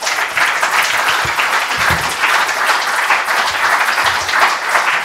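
Audience applauding: many hands clapping together, steady and loud.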